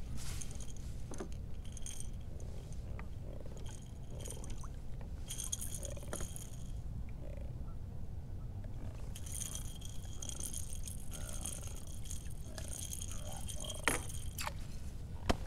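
Light metallic clinking comes and goes in short spells while a small blue catfish is handled and unhooked, over a steady low rumble of wind and water at the kayak. A couple of sharp knocks come near the end.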